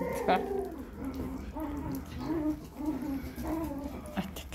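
Puppies making a string of short, low cooing grunts, several soft notes in a row.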